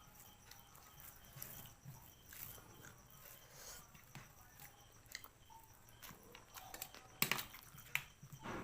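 Faint close-miked eating sounds: chewing with scattered small clicks, and a louder run of clicks about seven seconds in.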